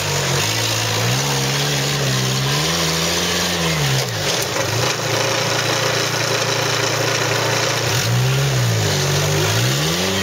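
Trial 4x4's engine revving up and down as the vehicle crawls over rocks and roots. The revs swing up and fall back twice, once in the first few seconds and again near the end, with a sharp knock about four seconds in.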